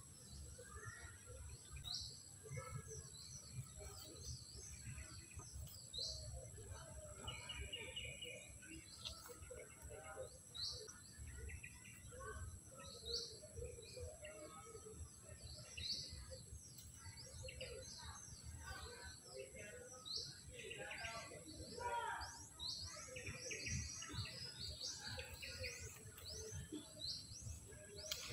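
Birds calling, with short high chirps repeating every couple of seconds among other scattered calls, over a steady low rumble.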